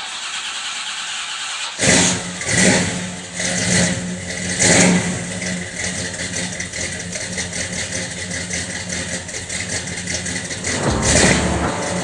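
The 1976 Pontiac Trans Am's V8 starting: it catches about two seconds in, is revved in several quick blips, then runs at a steady fast idle, with one more rev near the end.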